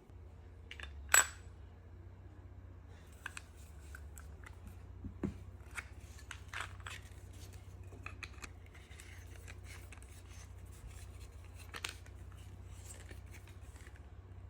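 Irregular small mechanical clicks and clacks of an air pistol being handled, with one sharp, much louder click about a second in, over a steady low hum.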